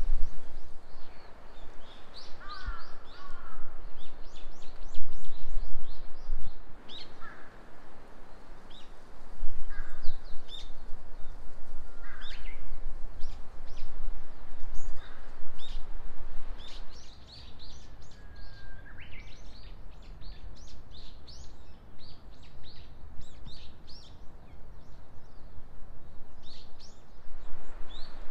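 Several small birds chirping and singing in a forest, with many short, high chirps and trills coming one after another. Underneath runs a gusty low rumble of wind.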